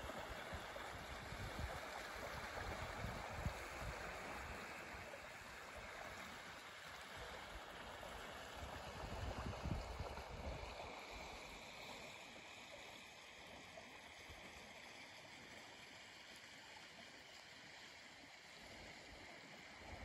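Steady rushing of a river running over shallow rapids, a little softer in the second half.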